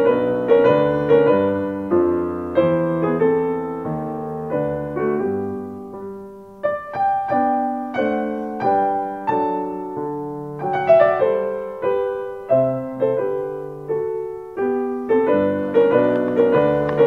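Background piano music: a melody of single notes over chords, each note struck and left to ring.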